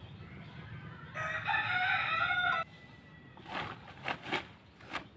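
A rooster crows once, about a second in: one call about a second and a half long. A few short knocks follow near the end.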